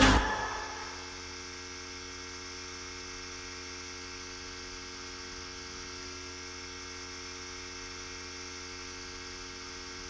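Music cuts off at the start and dies away within about a second, leaving a steady electrical hum of several fixed tones with a faint hiss.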